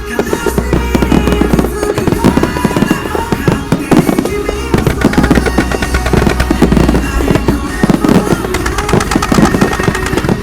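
Fireworks bursting and crackling in a dense, continuous volley, thickest in the second half, with music playing alongside.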